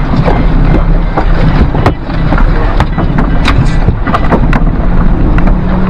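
Strong wind buffeting the microphone in an open fishing boat, a heavy steady rumble with a low hum underneath and scattered knocks and clicks from handling in the boat.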